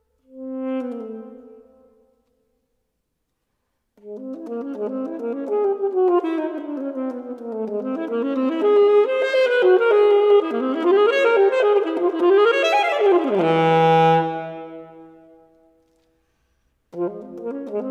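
Alto saxophone played solo without accompaniment. One short note is followed by a pause of about two seconds, then a fast run of notes sweeping up and down. The run ends on a held low note that dies away, and the playing starts again near the end.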